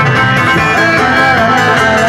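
Loud live band music with a guitar-like plucked string sound and a wavering lead melody line, playing continuously for Bajau-style dancing.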